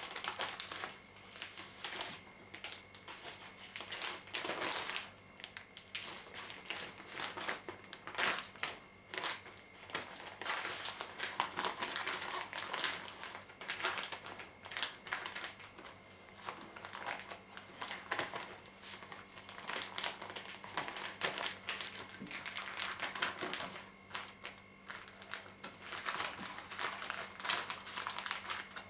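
Clear plastic bag crinkling and rustling in irregular bursts as hands pack a chicken into it and press it flat. The crinkling stops just at the end.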